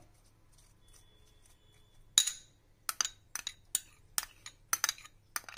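Metal spoon clinking against a ceramic bowl as oil and herbs are scraped out of it: one sharp ringing clink about two seconds in, then a run of short clinks and taps, two or three a second.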